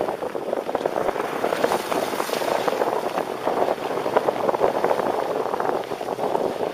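Skis sliding and scraping over groomed, packed snow on a downhill run: a continuous rough, scratchy hiss that rises and falls in loudness.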